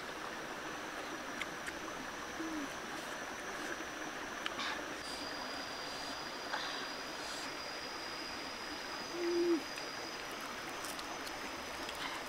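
Steady rush of a small rocky stream, with three short low single-note calls that dip at the end, the longest and loudest about nine seconds in. A faint high steady whine comes in about five seconds in, and there are a few soft clicks.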